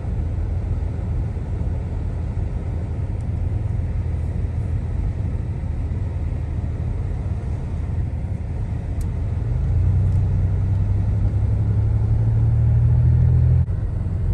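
Motor vehicle running, a steady low rumble of engine and road noise that grows louder about ten seconds in and drops off suddenly near the end.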